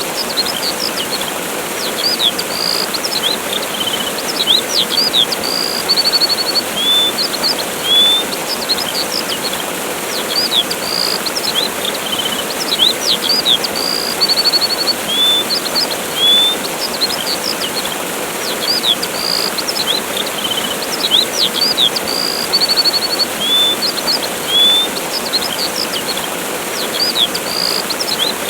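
Steady rush of a waterfall with small songbirds chirping over it: quick upswept chirps and short high trills, the same phrases recurring every dozen seconds or so.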